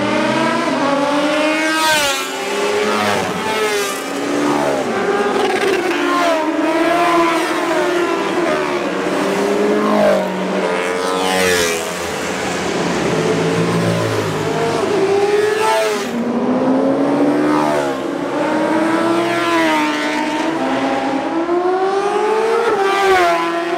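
Several racing sport motorcycles accelerating hard down a race-track straight, one after another. Each engine note climbs through the revs and drops back at every upshift, and the louder bikes go past about 2, 10, 16 and 23 seconds in.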